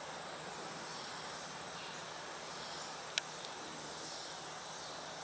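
Faint, steady outdoor hiss of rural background ambience, with a single sharp click about three seconds in.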